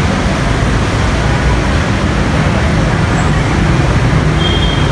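Steady, loud traffic noise from a jam of idling and crawling cars and a bus, a continuous low rumble.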